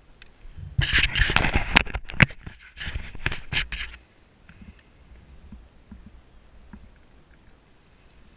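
Rough scraping and rubbing for about three seconds, broken by sharp scratchy cracks, then it stops and only a faint hiss remains.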